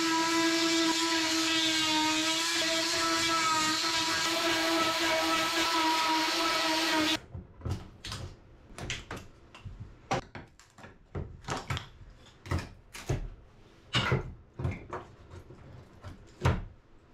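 Oscillating multi-tool running steadily with a high, even buzz as it cuts into wooden tongue-and-groove panelling; it stops abruptly about seven seconds in. After that come irregular sharp knocks and taps of hand tools and wood pieces against the panelling.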